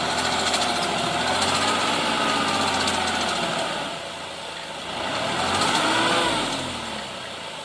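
Light dump truck's engine running at raised revs to drive the hydraulic hoist while the bed tips out a load of soil. The engine pitch rises and falls, dips, then swells again about five seconds in.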